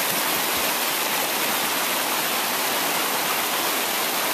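Creek water rushing over rocks in shallow rapids: a steady, even rush.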